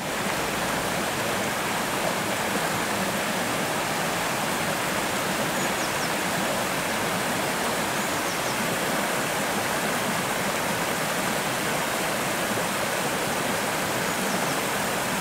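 Shallow, rocky stream rushing over stones in riffles: a steady, even rush of water, with a few faint high chirps.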